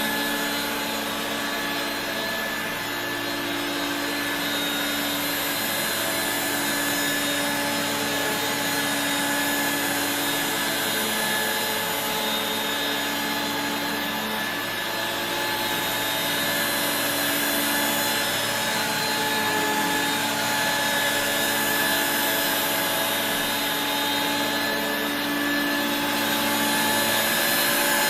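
1985 Regina Electrikbroom PowerTeam stick vacuum running steadily: its suction motor's whine over a rushing airflow, with a lower hum from the motorized beater-brush nozzle that swells and fades every few seconds.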